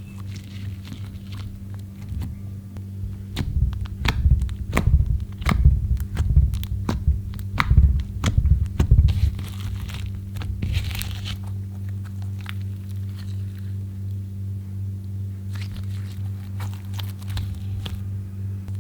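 Slime being squeezed and worked by hand: a run of sticky clicks and pops, thickest from about four to ten seconds in and sparser after, over a steady low hum.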